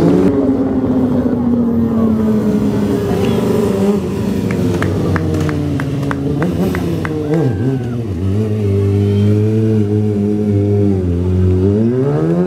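Sport stunt motorcycle's engine: its revs fall away over the first few seconds and hold at a steady note for a while, then climb sharply near the end as the bike is brought up on its back wheel. In the middle there is a run of short sharp ticks, about three a second.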